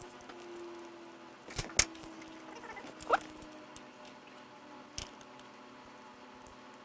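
Metal-on-metal clicks and a short rising squeak as thumb screws are turned in by hand to hold a bearing-puller support plate on the engine case: a sharp pair of clicks about two seconds in, the squeak near the middle, and one more click about five seconds in.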